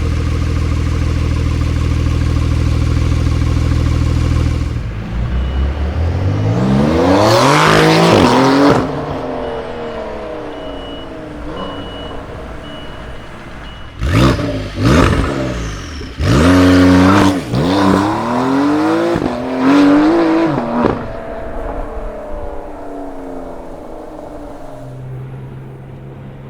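Porsche 992 Carrera flat-six through a Capristo valved aftermarket exhaust, idling steadily, then revved. One long climb and fall comes first, then a run of sharp blips and short revs, before the engine settles back to idle.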